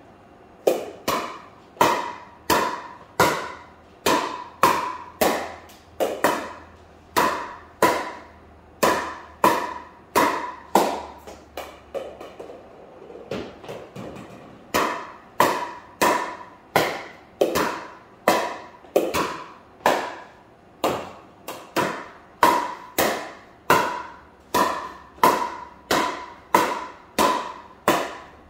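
Pickleball paddle hitting a plastic pickleball over and over in a fast volley drill, about two sharp hits a second with a short ringing after each. About eleven seconds in, the hits turn soft and sparse for a few seconds, then the steady rhythm resumes.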